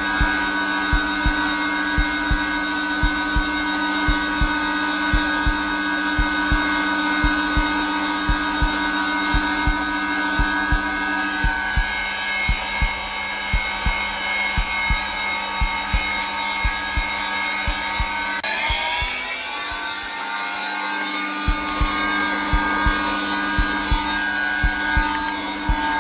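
Zelmer vacuum cleaner running steadily on its lowest setting, a continuous motor whine, with a heartbeat thumping regularly underneath. About eighteen seconds in the whine rises in pitch, and the heartbeat drops out for about a second shortly after.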